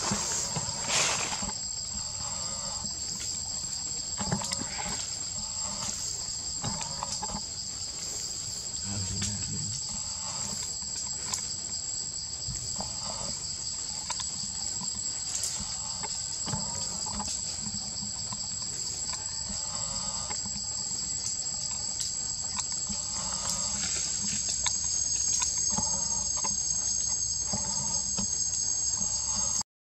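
Steady high-pitched chorus of insects droning without a break, with faint scattered short sounds underneath.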